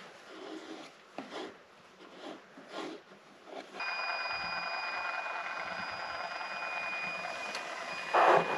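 Cordless caulking gun's motor running steadily with a thin high whine as it drives sealant out of the tube, starting about four seconds in after a few soft handling sounds. A short louder noise comes near the end.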